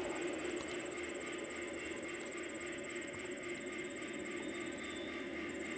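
Large-scale garden model freight train running steadily, its cars rolling along the track with an even hum. A high, fast insect trill pulses over it.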